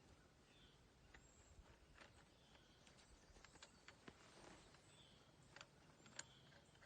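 Near silence: faint background with a few small scattered clicks and some faint short chirps.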